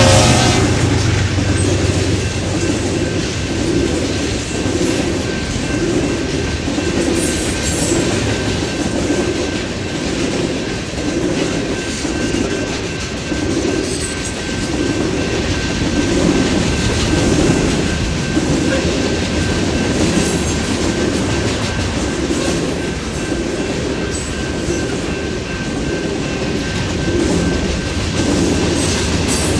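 Freight cars of a mixed freight train rolling past, their steel wheels clattering over the rail joints in a steady clickety-clack about once a second. A faint, steady high whine runs through it. The tail of a horn blast and the low rumble of the departing locomotives fade out in the first few seconds.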